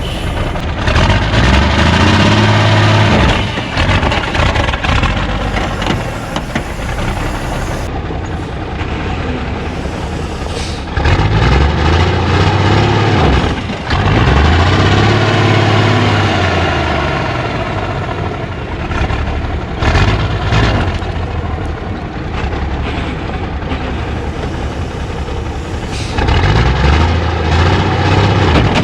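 855 Cummins diesel engine, straight-piped, revved hard several times, the pitch climbing and falling back each time, with steadier running in between.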